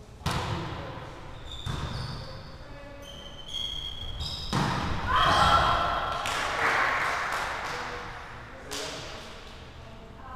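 Volleyball rally in a reverberant gym: the ball is struck about four times with sharp echoing smacks. Short high squeaks of sneakers on the hardwood floor come in between. Players shout about five seconds in, the loudest moment.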